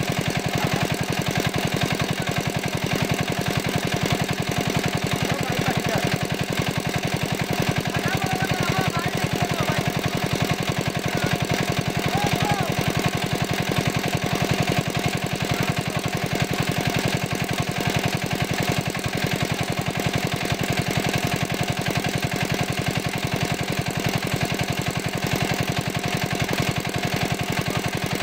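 Small engine-driven water pump running steadily with a fast, even pulse, pumping water out of a pond.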